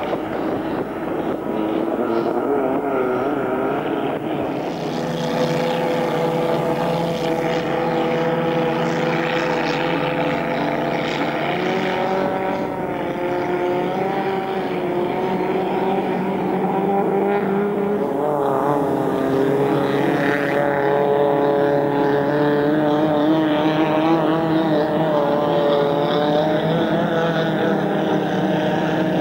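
Vintage inboard racing hydroplane engines running continuously, their pitch wavering and gliding up and down as the revs change, with more than one engine at times.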